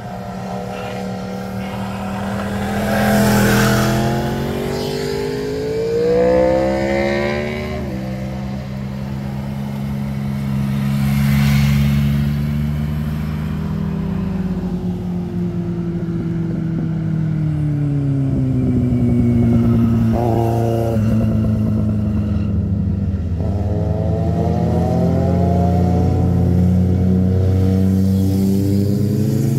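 Motorcycle engines accelerating as bikes pass one after another, the pitch climbing and then dropping sharply at each upshift. A car passes midway, and several sport bikes come through together near the end, overlapping.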